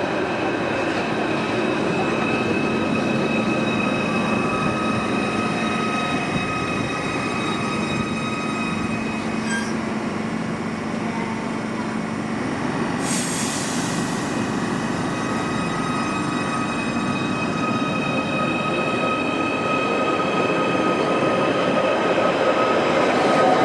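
Merseyrail electric train running at the station, with a steady rumble and several held whining tones. There is a brief hiss about 13 seconds in, and the sound grows louder near the end.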